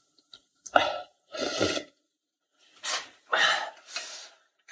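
A man slurping hot dumpling soup from a metal pot, with short breathy exhalations between sips, about five in all.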